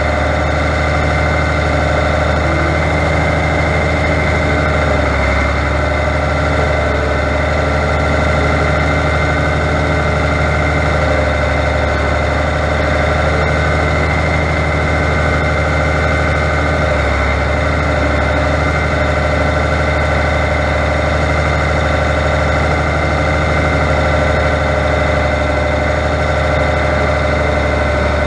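Diesel engine of a Fiatagri 100-90 tractor running steadily as the tractor drives along.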